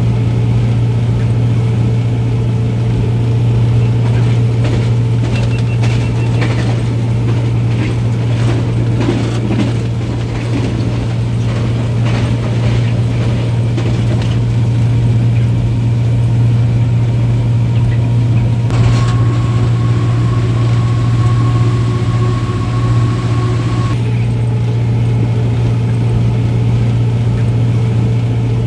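Diesel-electric locomotive running under power with a loud, steady low engine drone, heard from the locomotive's own outside walkway. Rapid clicking and rattling from the wheels on the track is heaviest in the first half, and a faint steady high tone comes in for a few seconds later on as the train rounds the curve.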